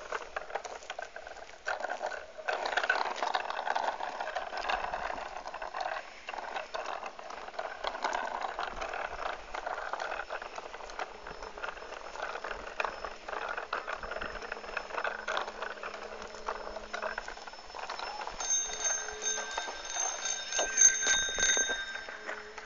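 A child's small bicycle on training wheels rolling over rough asphalt: a steady rolling noise with many small clicks. Near the end a bicycle bell rings repeatedly for a few seconds.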